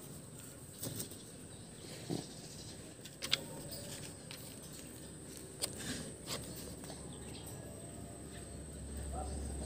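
Puppies digging in gravelly dirt: a few scattered scrapes and clicks of paws and noses working at the ground, over a steady faint high tone.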